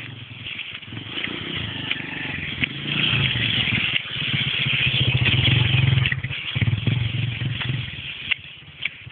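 Small motorcycle engine running at low revs as the bike rides slowly past close by on a dirt track. It grows louder to a peak about five to six seconds in, then falls away as it moves off.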